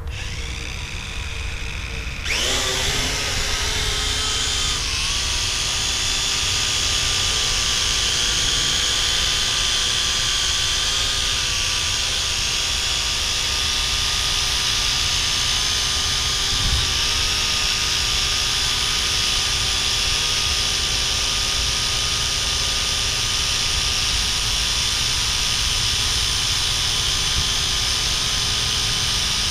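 Vivitar AeroView GPS quadcopter's four motors and propellers spinning up with a quick rising whine about two seconds in, then holding a steady high-pitched whine as the drone takes off and hovers.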